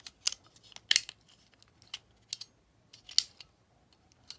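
Small sharp plastic clicks and taps, about eight spread irregularly, the loudest about a second in and just after three seconds in, as the trim plate is pressed onto the battery cover of a Sony Walkman WM-600.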